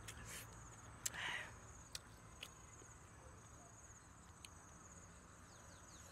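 Faint, high-pitched insect trill, steady and finely pulsing throughout. A few small clicks and a short rustle come about a second in.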